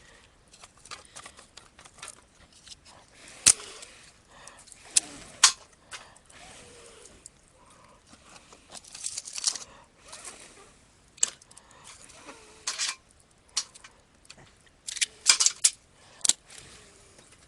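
Wood campfire crackling, with irregular sharp pops and clusters of snaps.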